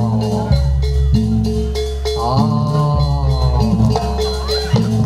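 Jaranan accompaniment music: gamelan-style percussion keeping a steady beat, with a melody line that bends up and down over it.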